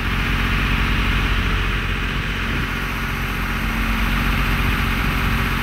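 Steady engine drone: a constant low hum under an even hiss.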